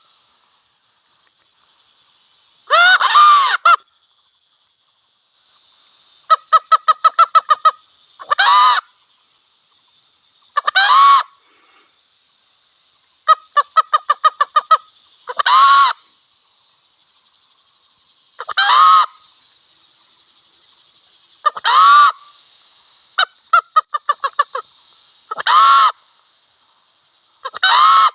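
Wild hen and cock calling: loud single squawking calls every two to three seconds, mixed with three quick runs of clucks at about five a second.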